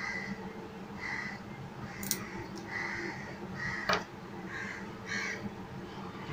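Birds calling repeatedly in the background, short calls about once a second, over a low steady hum, with two sharp clicks about two and four seconds in.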